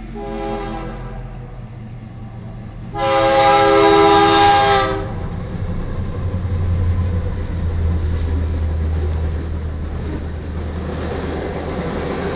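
Diesel locomotive air horn of a GE C44-9W sounding a short blast, then a loud long blast about three seconds in lasting about two seconds: the closing short-and-long of the grade-crossing horn signal. After it, the steady low rumble of the diesel locomotives passing, with freight cars starting to roll by near the end.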